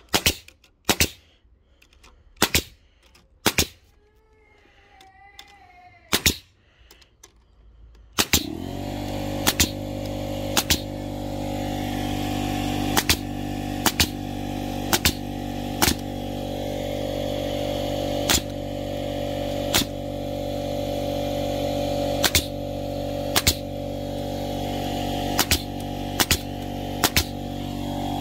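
Pneumatic Bostitch angled finish nailer firing nails one at a time into timber: sharp shots at irregular intervals, about twenty in all. About eight seconds in, an air compressor starts up and runs steadily under the shots.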